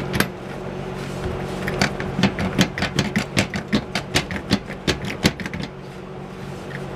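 Quick, irregular clicking and knocking as a stiff box-fan blade is wiggled and pulled up its motor shaft, over a steady low hum.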